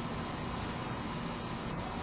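Steady hiss with a faint hum and a thin high whine: the background noise of a zoo den's webcam microphone, with no clear sound from the panda or cub.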